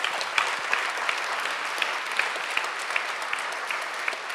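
Audience applauding: many hands clapping at once in a steady, dense patter.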